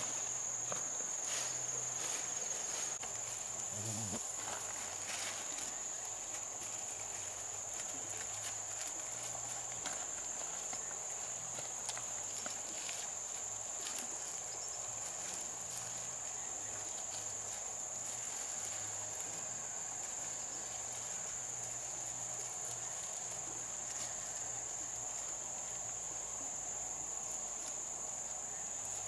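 Insects chirring in a steady high-pitched drone, with scattered light taps and ticks.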